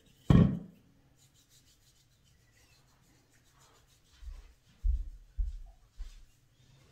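A thump just after the start. Then faint, soft rubbing of a hand on skin as pre-epilation cleanser is rubbed into an armpit. From about four seconds in come four low, dull footsteps.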